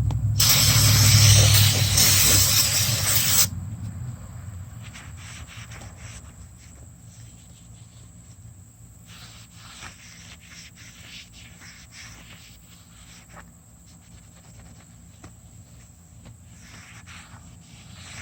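Aerosol can of brake cleaner spraying in one hissing burst of about three seconds that stops sharply, degreasing the shipping oil off a new brake rotor. Faint clicks and rustles of handling follow.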